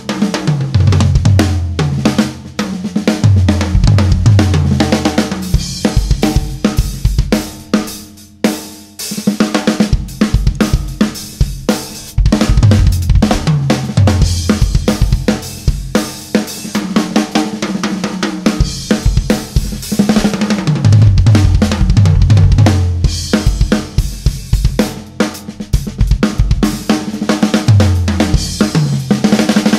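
Acoustic drum kit played: a groove on kick, snare, hi-hat and cymbals, broken several times by fills that step down across the toms from high to low.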